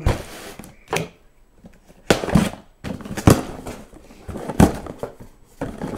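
A cardboard shipping box being handled and opened by hand: about six separate knocks, scrapes and rustles of cardboard, with short quiet gaps between them.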